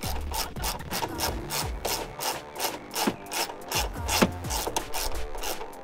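Ratchet wrench clicking in quick, even back-and-forth strokes, about four or five clicks a second, as it snugs up the 13 mm top-mount nuts holding a coilover at the strut tower.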